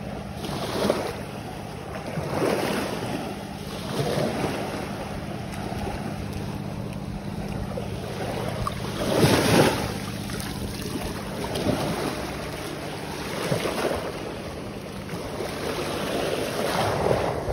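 Small waves washing in over a muddy beach, in irregular rushing swells every second or two, the biggest about halfway through, with wind rumbling on the microphone.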